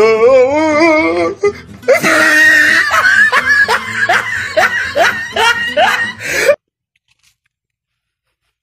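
A warbling, wavering voice, then loud laughter with about two rising 'ha's a second; it cuts off abruptly to silence about six and a half seconds in.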